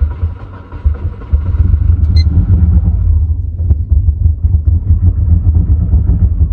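Freshly rebuilt turbocharged EJ21 flat-four in a Subaru Legacy GT-B running on its first start, heard from inside the cabin. It makes a low, uneven rumble that gets louder about a second in. It is running badly.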